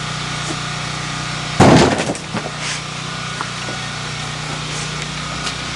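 An airsoft electric gun (AEG) fires one short burst lasting about half a second, with a rapid mechanical whirr, a little under two seconds in. A steady low hum runs underneath.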